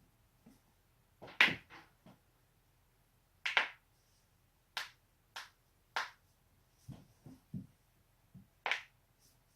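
Neck joints cracking as the neck is twisted: a string of sharp, separate pops, about eight of them at uneven intervals, the loudest one about a second and a half in. A few soft, dull knocks fall between the later pops.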